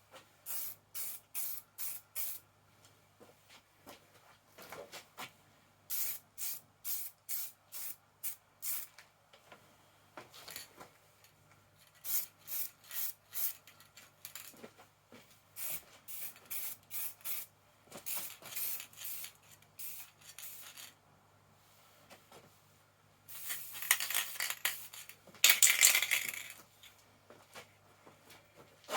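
Aerosol spray can of acrylic paint hissing in many short puffs, a few a second, then one longer, louder spray of about three seconds near the end.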